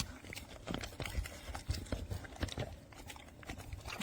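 Dog eating kibble from a slow-feeder bowl, with irregular small clicks and knocks as the food and its mouth work against the bowl's ridges.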